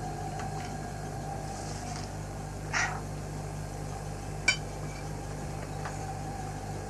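A spoon scraping and then clinking against crockery while eating, a short scrape nearly three seconds in and a sharp clink about a second and a half later, over a steady low hum.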